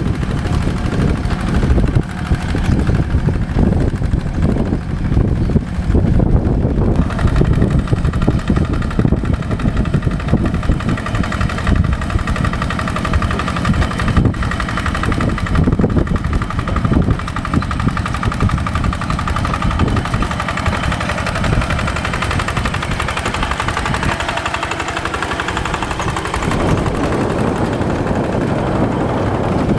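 Tractor's diesel engine running continuously with a rapid chugging pulse. Its sound shifts somewhat near the end.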